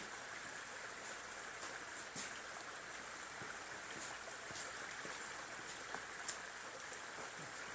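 Quiet steady background hiss with a few faint scattered ticks and clicks.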